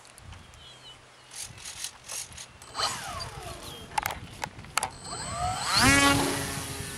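Scattered clicks and rattles of the RC Cub model airplane being handled, then near the end its motor and propeller spool up in a fast rising whine and hold a steady pitch at takeoff throttle.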